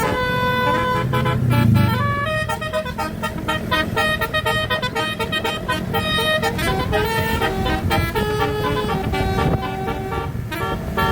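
Basuri multi-tone telolet bus horn playing a melody, its notes changing in quick steps with short breaks between phrases, over a low rumble that swells briefly about two seconds in.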